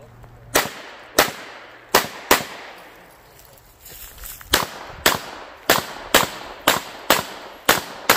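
Pistol shots from a competitor's stage run. Four sharp shots come in the first two and a half seconds; after a pause of about two seconds, eight more follow about half a second apart, each with a short echo.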